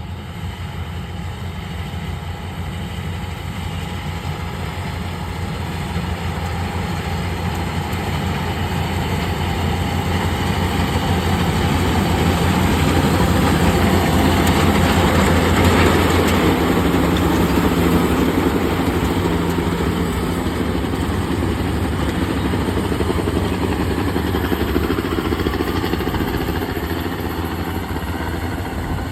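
Yanmar rice combine harvester running steadily while it cuts standing rice, its diesel engine hum and threshing machinery noise growing louder to a peak about halfway through and then easing off as the machine passes.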